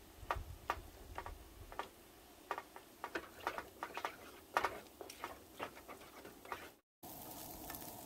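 Cooked potatoes being stirred and mashed in a metal saucepan, the utensil knocking and scraping against the pot in irregular strokes, two or three a second. Near the end this breaks off and a steady hiss follows.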